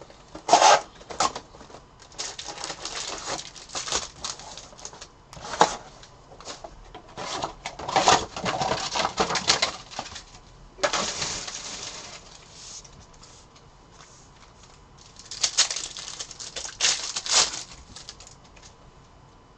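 Foil card packs and box wrapping being handled and torn open: irregular bursts of crinkling and crackling, with a quieter stretch a little past the middle before a few more sharp crinkles.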